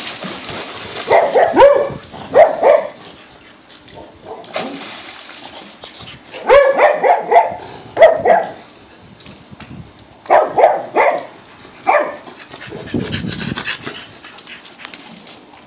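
Dogs barking in three bursts of a few sharp barks each, with pauses between: agitated barking at a swimmer who has gone underwater.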